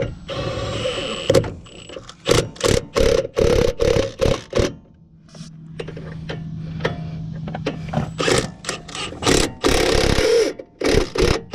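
Ratchet and 14 mm socket running the new lower strut-mount bolts snug: runs of quick ratchet clicks with metal clacks.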